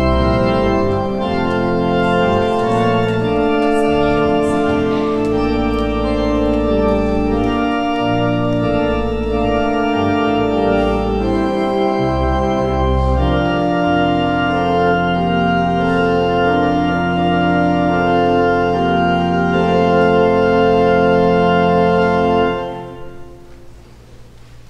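Organ playing slow, sustained chords, ending on a long held chord that is released about two seconds before the end and dies away in the room's reverberation.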